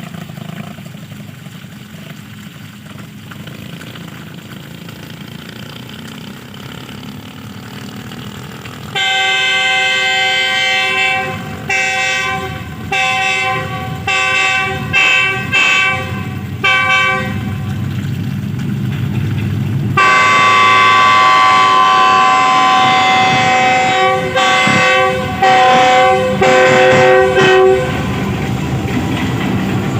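GEU-40 diesel-electric locomotive's multi-tone air horn sounded repeatedly over a low rumble: a string of short blasts starting about nine seconds in, then longer, louder blasts with brief breaks from about twenty seconds in.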